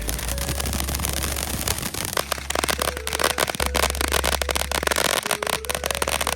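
Fireworks crackling: a dense run of rapid pops and crackles, thickest from about two seconds in.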